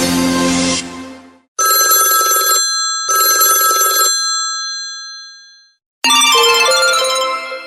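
Samsung Wave GT-S5800 ringtones played straight from the audio files. An electronic music tone fades out in the first second and a half. Then a telephone-bell-style ringtone rings twice, each ring about a second long with a long fading tail, and about six seconds in a new melodic ringtone begins.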